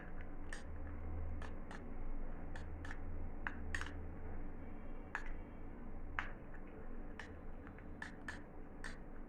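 A spoon stirring honey and ginger juice in a small bowl: light irregular clicks and scrapes against the bowl, a couple to three a second, over a low steady hum.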